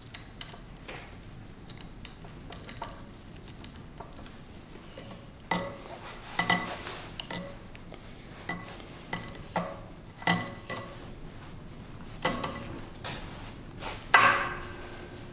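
Metal parts of an oil-free air compressor pump's cylinder, sleeve and piston being handled and worked loose by hand: scattered metallic clinks and taps, some ringing briefly, the loudest about 14 seconds in.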